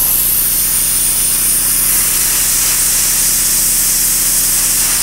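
Handheld air-blowing tool switched on suddenly and running steadily, a loud rushing hiss of air over a low fast-fluttering motor hum, as it is worked against the neck feathers of a mounted duck.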